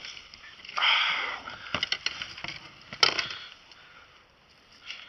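Handling noise from a just-landed small trout in a kayak: clicks and knocks, a short rustle about a second in and a sharp knock about three seconds in.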